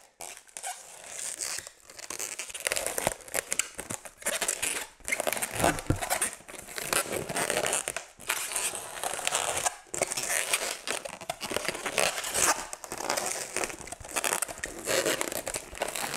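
Latex twisting balloons rubbing against each other and being twisted as one is attached to a balloon figure: a continuous scratchy rubbing broken by many small clicks.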